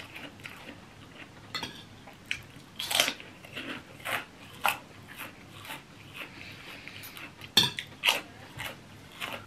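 Crisp kerupuk crackers crunching as they are bitten and chewed, in scattered sharp crunches a second or more apart, with a few light clinks of a spoon and fork on a bowl.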